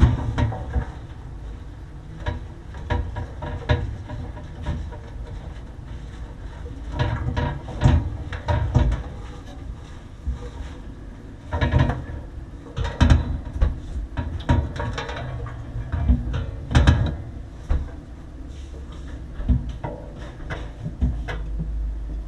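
Irregular knocks, clicks and rattles of hands working on refrigeration equipment and handling parts and tools. They come in clusters over a low steady rumble.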